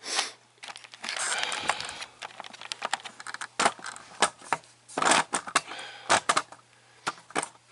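Close handling noise on the camera's microphone: a run of irregular clicks and knocks, with rustling about a second in, as the camera is picked up and moved about.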